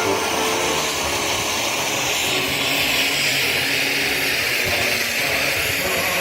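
Steady, loud hissing spray, likely a firework fountain ground effect burning, a little stronger around the middle, with no bangs.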